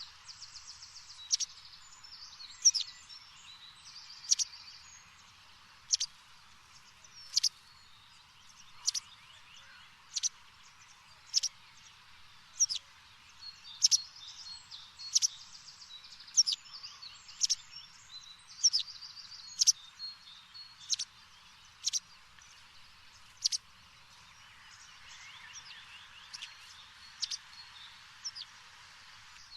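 Birds chirping: a sharp, high chirp repeated roughly once every second and a half, with short high trills between the chirps. The chirps pause for a few seconds near the end.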